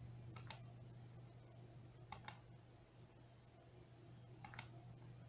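Computer mouse clicked three times, each a quick double click about two seconds apart, over a faint low hum.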